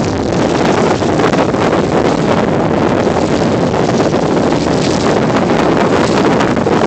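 Wind rushing steadily over the microphone on a boat at sea.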